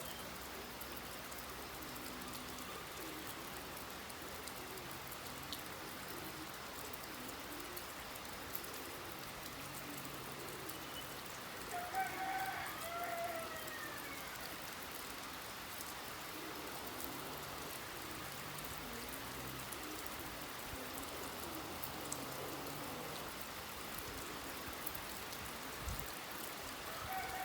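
Steady rain falling, with a rooster crowing once about halfway through.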